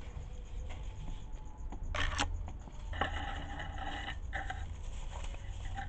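Young duck pecking dried corn kernels off a tiled floor: light clicks and scrapes of its bill on the tile, with a short loud scrape about two seconds in. A steady pitched sound lasts about a second around the middle, with a shorter one just after, over a constant low hum.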